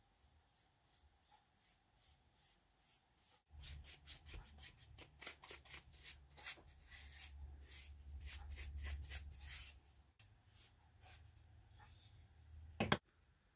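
Flat bristle paintbrush stroked back and forth over an oak disc, applying wood stain: a series of soft brushing strokes, about three a second at first, then faster and denser. A low hum runs under the strokes from a few seconds in, and a sharp knock sounds near the end.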